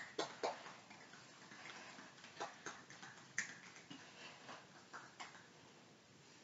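Faint, irregular clicks and taps, about ten in the first five seconds, from a child moving through warm-up exercises. Then only faint room tone.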